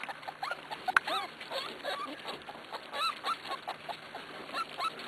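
Six-week-old Corgi puppies squeaking and whimpering: many short, high-pitched yips and whines scattered through, with a sharp click about a second in.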